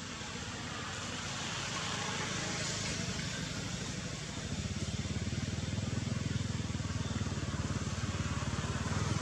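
A motor vehicle engine running, with a low, even pulsing that grows louder about halfway through over a steady hiss.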